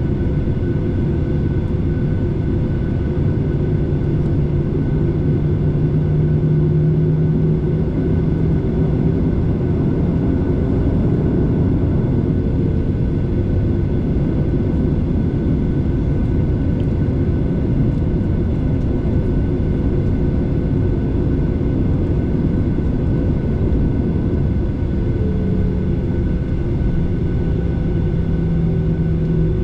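Airliner cabin noise: a steady, loud engine drone and low rumble heard from inside the passenger cabin, with a faint hum whose pitch shifts slightly.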